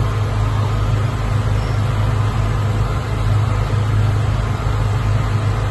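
A steady low mechanical hum under an even hiss.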